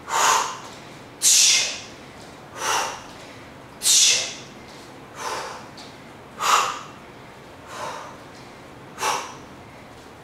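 A woman's sharp, forceful exhales, about eight of them roughly every 1.3 seconds, every other one stronger: she is breathing out hard on each effort of a lunge-and-teep (push kick) drill.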